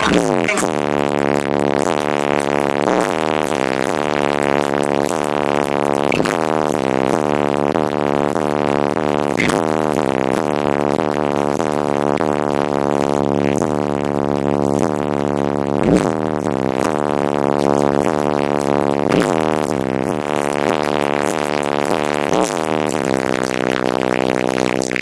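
Bass-heavy music played through two 18-inch subwoofers, heard inside the car's cabin. The deep bass comes through as a dense, droning stack of tones, with a sweep through it every few seconds.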